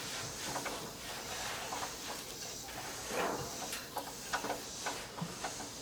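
Faint scattered clicks and light knocks of hand work on a car's oil drain plug as it is unscrewed for an oil change.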